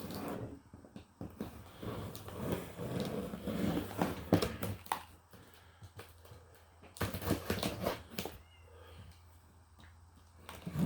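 Irregular rustling, clicks and knocks of things being moved and handled while a boxed cordless chainsaw is got ready for opening, in two spells with a quieter stretch between them.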